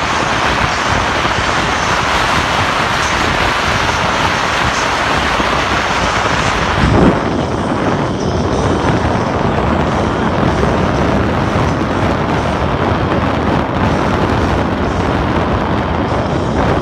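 Strong wind buffeting the microphone as a steady, loud rush, with a louder gust or thump about seven seconds in.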